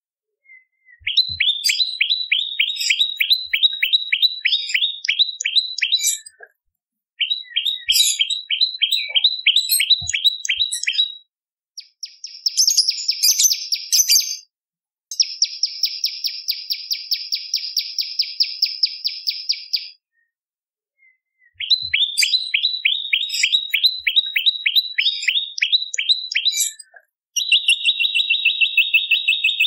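Prenjak lumut song: phrases a few seconds long of rapid, sharp, repeated chirps, broken by short pauses, with a buzzier, higher-pitched trill in the middle.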